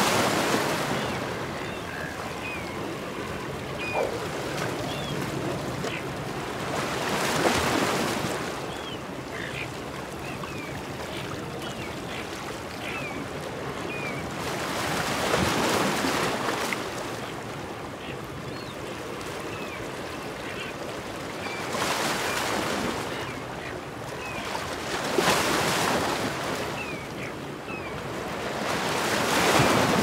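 Surf washing over a rocky shoreline, swelling into louder breaking waves every several seconds (about six times), with seagulls calling in short high notes between them.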